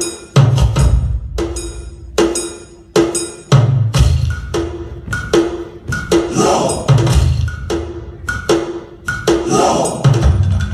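Drum-led music for a cultural dance: sharp drum strokes about twice a second, each with a ringing metallic tone, and deep drum beats every few seconds.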